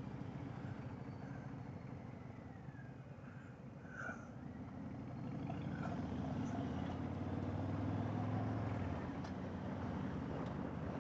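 Harley-Davidson V-twin motorcycle engine running at cruising speed, with road and wind noise. The engine gets louder about halfway through, as if under throttle, and eases back near the end.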